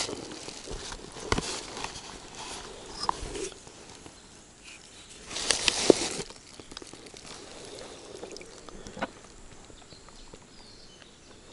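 Close handling sounds as a caught bream is unhooked: scattered clicks and short rustles, with a louder rustling burst and clicks about five and a half seconds in.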